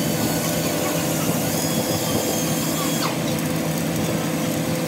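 Welding arc crackling, starting about three seconds in, over a steady machine hum.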